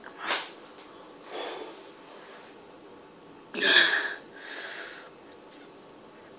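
A person breathing out and in sharply through the mouth, four hissing breaths, the loudest a little past halfway: a reaction to lips burning from hot sauce.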